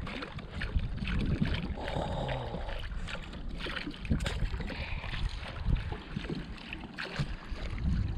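Water swishing and swirling as a rod tip and musky lure are swept through the water at the boat's side in a figure-eight for a following fish, with small splashes and clicks and a low wind rumble on the microphone.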